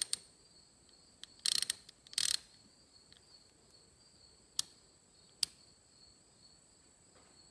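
Small metal parts of a utility-vehicle tailgate latch and its screw clicking and rattling as they are handled: two short rattles in the first few seconds, then two sharp single clicks. Crickets trill steadily underneath.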